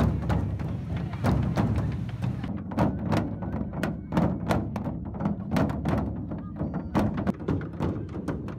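A large hide-covered drum lying flat, struck by many people at once with wooden sticks and padded mallets: a dense, uneven run of drumbeats with no shared rhythm.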